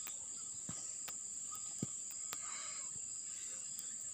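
Crickets trilling steadily at a high pitch, with a few faint, sharp clicks and taps from the wires being twisted together by hand.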